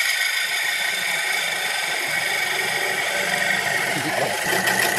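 A lathe parting tool cutting into the worn outer edge of a used sanding disc spinning on an arbor, trimming it back to a fresh edge. It makes a steady, high-pitched scraping hiss with a ringing tone through it.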